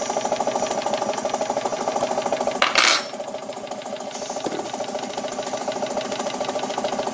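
Restored Jensen #50 model steam engine running steadily with a rapid, even mechanical beat. A brief loud hiss cuts in about two and a half seconds in.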